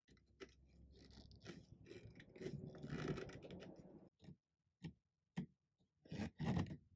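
A hand gripping and working the wooden stretcher rail and legs of a reglued dining chair: a rustling scrape of skin on the finished wood for about four seconds, then several short knocks, the loudest pair near the end.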